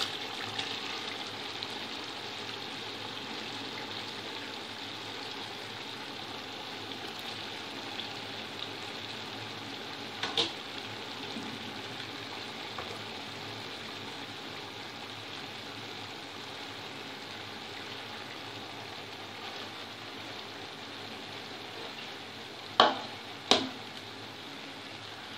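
Potato biryani gravy bubbling and sizzling steadily in a pot, with a sharp knock about ten seconds in and two more near the end.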